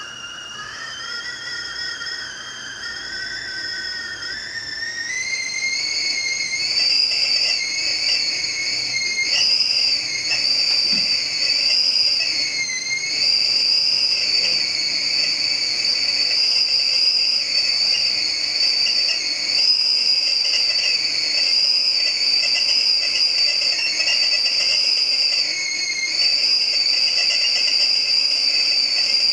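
Glass stovetop whistling kettle whistling at the boil. The whistle rises in pitch and loudness over the first five seconds or so, then holds a steady, high tone over the bubbling of the rolling boil.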